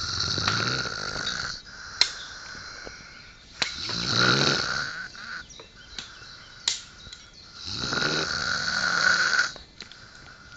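A man snoring heavily: three loud, rasping snores about four seconds apart, with a short sharp click in two of the quieter gaps.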